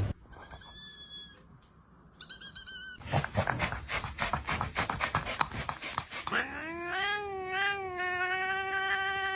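A cat calling: a few short, high chirps, then a rapid run of clicks about five a second, then one long, drawn-out yowling meow that rises and then holds steady.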